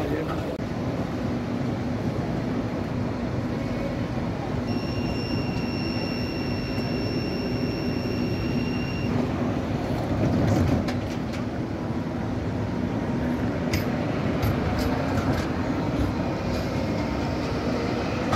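ČKD Tatra KT4YU articulated tram running on city track as it pulls away and passes close by, a steady rumble of motors and wheels that is loudest about ten seconds in. A steady high tone sounds for about four seconds from around five seconds in, and a few sharp clicks come later.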